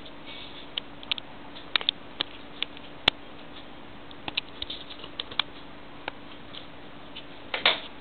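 Irregular sharp clicks of a cockatiel's claws tapping on a tiled floor as it walks, with one louder, longer clatter near the end, over a faint steady hum.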